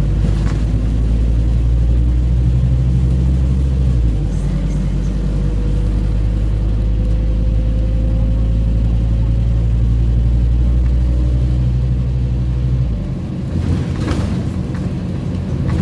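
Scania OmniCity N230UD bus's five-cylinder diesel engine droning low, heard from inside the lower deck while the bus drives along. The engine note shifts about four seconds in, a faint whine rises slowly in pitch through the middle, and the drone falls away near the end as the bus eases off.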